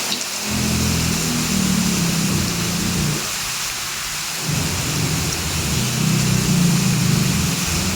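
Heavy rain pouring steadily, with rolling thunder rumbling low in two long peals, the second starting about halfway through.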